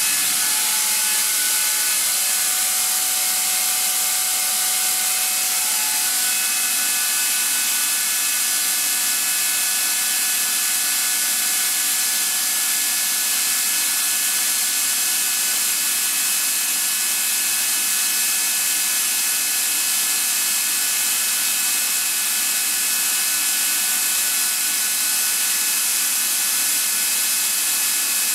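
Atlas Copco ZR75FF oil-free rotary screw air compressor running: a steady loud high hiss with several thin, steady whining tones, one higher whine coming in about six seconds in.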